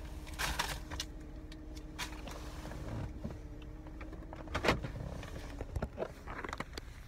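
Rustling and small clicks of things being handled inside a car, over a steady hum. There is a sharp knock about four and a half seconds in, then fumbling against the phone as a hand covers it.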